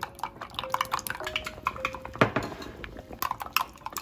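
Eggs being beaten in a glass measuring cup: rapid, irregular clinks of a utensil striking the glass.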